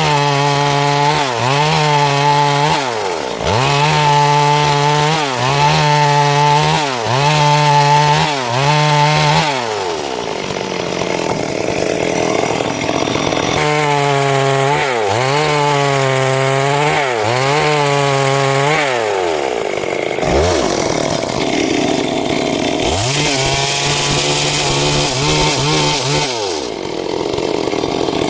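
Stihl MS 382 two-stroke chainsaw running under load while cutting wood. Its engine note sags and picks up again about once a second as the chain bites, and in a few stretches the note blurs into the rasp of the cut.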